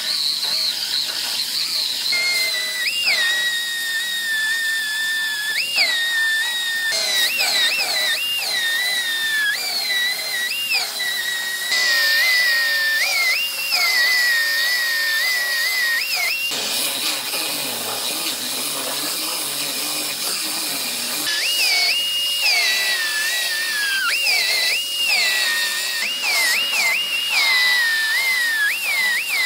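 Pneumatic cut-off wheel cutting through car-body sheet metal: a steady high whine over air hiss. The pitch jumps briefly higher about once a second as the disc eases off the cut, and the sound breaks off and resumes abruptly a few times.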